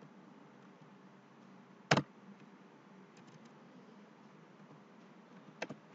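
Computer keyboard keystrokes while a name is typed: one sharp key click about two seconds in, a few faint ticks, and two quick clicks near the end, over a faint steady background hum.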